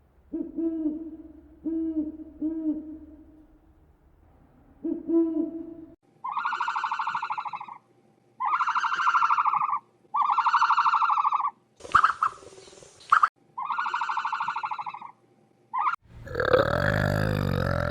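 An owl hooting, four short low hoots in the first five seconds. Then a different animal gives a run of five long, evenly pulsed calls. Near the end comes a louder, lower and rougher call.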